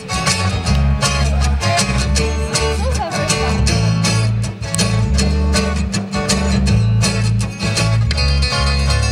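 Live instrumental passage on two acoustic guitars and an electric bass guitar, plucked and strummed over a strong bass line moving in steps, with no singing.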